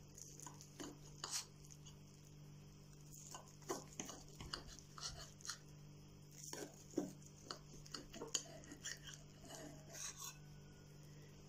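Faint, irregular taps and scrapes of a table knife against a porcelain plate as a folded omelette is cut into pieces, over a steady low hum.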